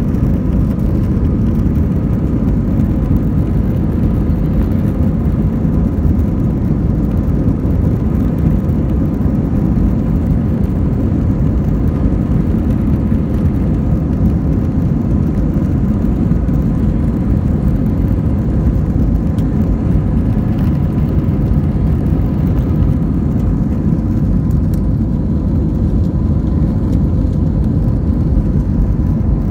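Jet airliner cabin during the takeoff roll and lift-off: the engines run at takeoff thrust as a steady, loud, even noise with a thin steady whine over it.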